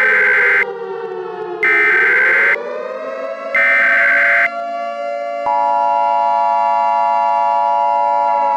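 Emergency Alert System tones over a wailing siren sound. Three short screeching bursts of EAS header data come about two seconds apart while the siren's pitch falls and then rises. About five seconds in, the steady two-tone EAS attention signal starts and holds, with the siren still sounding under it.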